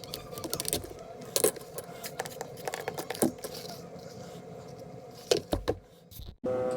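Scattered light clicks and rattles of small hard objects being handled, over a faint steady hum; it cuts off abruptly near the end.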